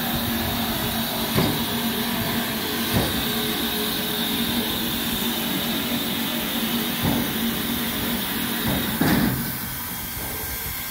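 Standing Baldwin 2-6-6-2 articulated steam locomotive simmering at rest: a steady hiss of steam with a low hum, and a few sharp metallic knocks. The sound drops somewhat near the end.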